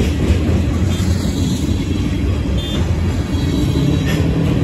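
Freight train's covered hopper cars rolling past, a steady heavy rumble of steel wheels on the rails. Near the end, a rising engine note joins in.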